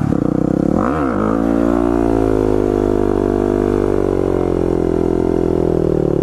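Motorcycle engine running under way, most likely a Yamaha WR250X single-cylinder. Its note drops sharply and picks up again about a second in, then holds fairly steady with a slow rise and fall in pitch.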